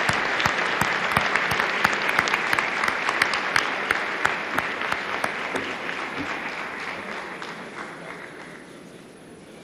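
Audience applauding, many hands clapping, the applause dying away over the last few seconds.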